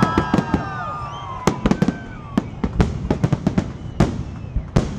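Fireworks salute: shells bursting in many sharp bangs and crackles at irregular intervals, thickest in the first second and a half and coming in clusters after that. A few sliding tones run over the bangs at the start.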